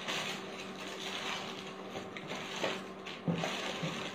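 Rustling and a few light clicks of small plastic jewellery packets being handled, over a steady low hum.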